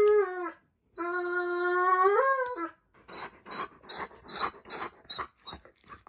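Doberman pinscher screaming during nail clipping: two long, high wails, the second rising at its end, then quick breathy panting. It is a show of protest rather than pain, by the owner's account.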